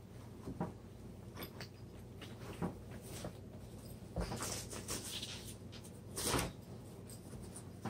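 Fabric seat-cushion cover rustling and being pulled over a honeycomb gel cushion, with scattered soft handling knocks; the loudest comes about six seconds in.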